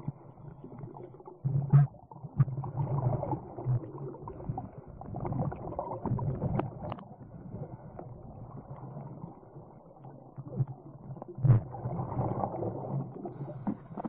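Scuba diver breathing through a regulator, heard underwater: muffled surges of bubbling and hiss every few seconds, with a few sharp knocks.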